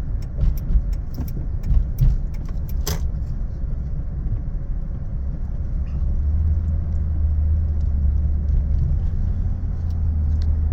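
Low, steady motor-vehicle rumble that grows stronger about six seconds in, with scattered light clicks and rattles in the first few seconds and one sharper click about three seconds in.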